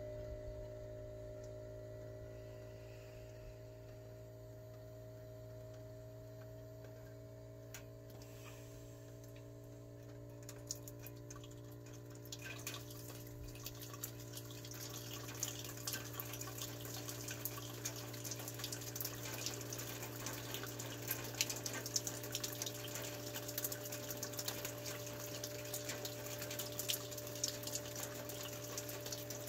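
Panasonic WC09H3E3 heat pump outdoor unit running its de-icing (defrost) cycle: a steady low hum with several steady tones, joined about twelve seconds in by a growing hiss with many small crackling ticks.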